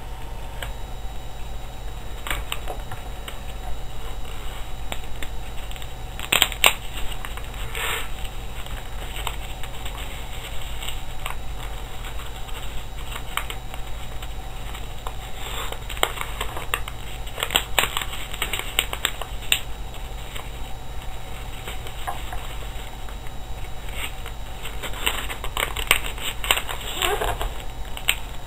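Sheet of paper rustling and crinkling as it is folded and creased by hand, with a few sharper crackles scattered through, over a steady low hum.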